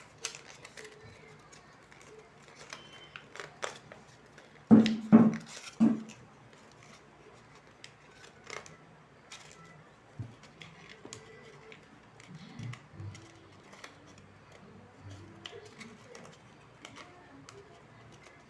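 Paper being cut with scissors and handled: a scatter of short snips and rustles, with three louder knocks about five to six seconds in.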